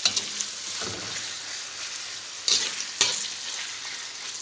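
Marinated chicken with onions and spices sizzling steadily in a pan while being stirred, cooking until the chicken's juices come out. A spoon scrapes and knocks sharply against the pan four times.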